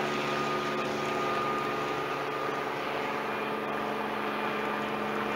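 A steady mechanical drone holding a constant pitch, with a faint thin tone over it that fades out a couple of seconds in.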